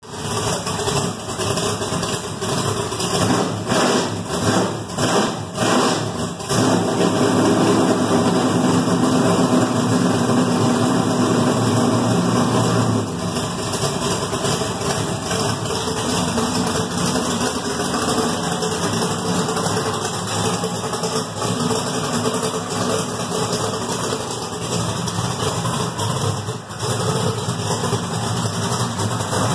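NASCAR Winston Cup-style Pontiac Grand Prix race car's V8 running on a cold start. Its speed rises and falls a few times in the first several seconds, then holds higher and steady before dropping back to a lower idle about 13 seconds in.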